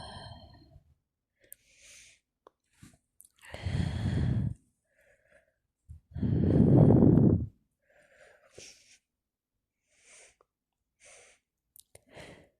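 A woman sneezing twice, the second sneeze louder, with short quiet breaths in between.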